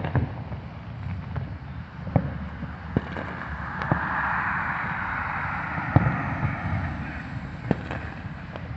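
Aerial firework shells bursting: separate sharp bangs a second or two apart, about seven in all. A car passes in the middle, its tyre noise swelling and then fading.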